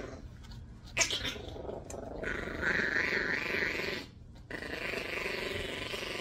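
Yorkie Biewer puppy growling in a long, rough growl while being brushed, breaking off briefly about four seconds in, with a sharp click about a second in. The growl is the puppy's protest at being groomed.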